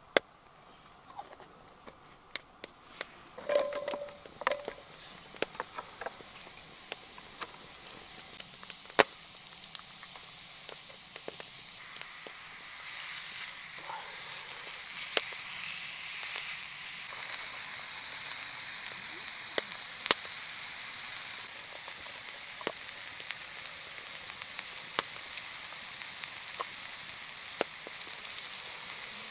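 Chicken and mushrooms frying in a wrought iron pan over a wood fire, stirred with a wooden spatula. A quiet sizzle grows much louder partway through as the food goes in. Sharp clicks are scattered throughout.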